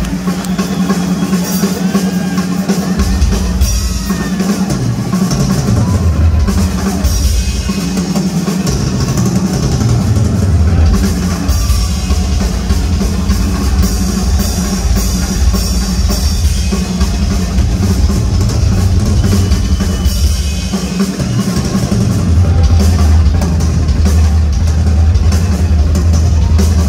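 Live rock drum solo on a full drum kit: fast, continuous bass drum, snare and tom hits with cymbals. The bass drum comes in heavily about three seconds in, eases around twenty seconds, and pounds harder again near the end.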